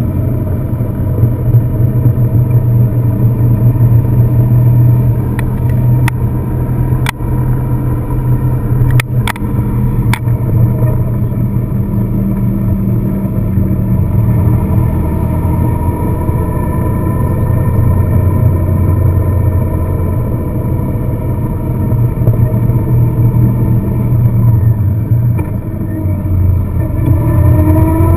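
Car engine running under way with steady road noise. A handful of sharp clicks come between about five and ten seconds in, and the engine pitch rises near the end as the car accelerates.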